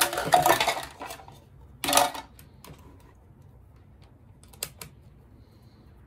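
Small hard tools and multimeter test probes clattering and knocking on a workbench as they are picked up and handled. A louder clatter comes in the first second, another about two seconds in, and a few light clicks near the five-second mark.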